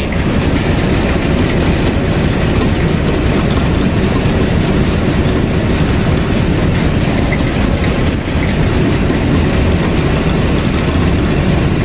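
Combine harvester running steadily at close range, its engine and threshing machinery turning over at less than full throttle.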